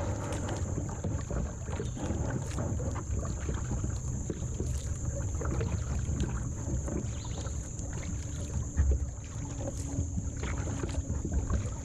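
Paddling a kayak: paddle dips and water splashing and lapping at the hull, with wind rumbling on the microphone and a gust or bump about nine seconds in.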